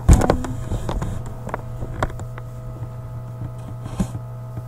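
Handling noise as the camera is moved: a loud knock just after the start, then scattered lighter knocks and rubs, over a steady low electrical hum.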